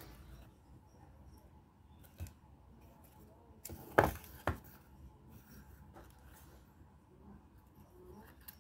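Cardboard being handled on a tabletop: light rustles and a few sharp knocks, the loudest two about four seconds in as the cardboard box is set down.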